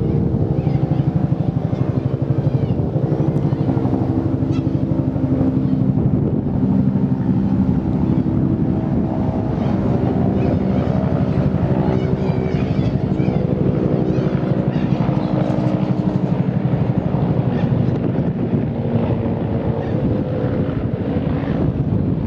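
Bell 214B-1 helicopter flying over, its two-bladed main rotor beating fast and evenly over a steady pitched engine and gearbox tone, with wind buffeting the microphone.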